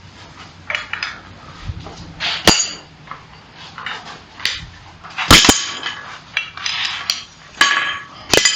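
Steel clanking and clinking in a series of separate sharp strikes, several with a bright metallic ring. The loudest is a quick double clank about five seconds in.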